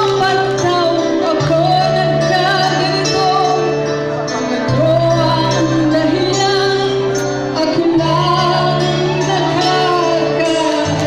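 A woman singing into a microphone over a backing music track with a steady bass line.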